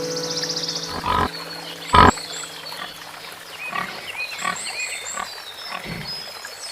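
A large animal calling: two short, loud calls about a second apart, then several softer ones, with birds chirping and background music fading out in the first second.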